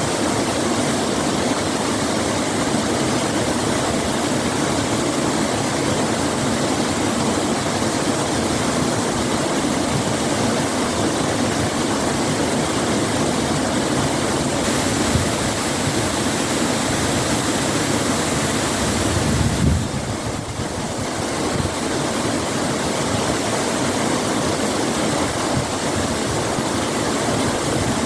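Shën Gjergj waterfall: steady rushing water, with a short dip in level about twenty seconds in.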